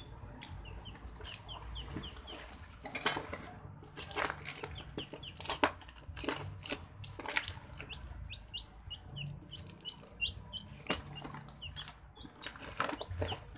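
Hands handling cardboard boxes, a plastic bag and bubble wrap: irregular rustling, crinkling and sharp knocks. Short bird chirps repeat in the background throughout.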